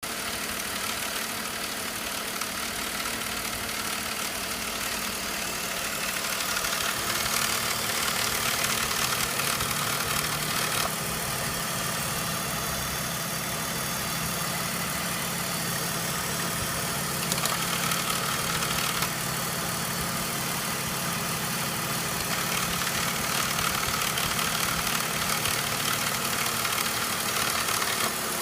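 BMW E39's 3.0-litre M54 straight-six idling with a rattle from the DISA intake valve, the sign of a failed DISA valve unit.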